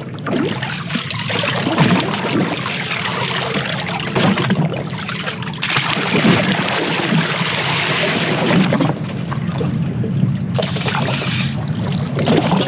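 Wind and water lapping against a small boat's hull, a steady rushing noise that shifts in level a few times.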